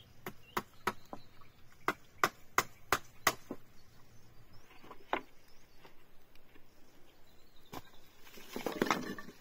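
A hand tool striking wood in a quick run of sharp knocks, about three a second, then two single knocks, and a brief rustling noise near the end.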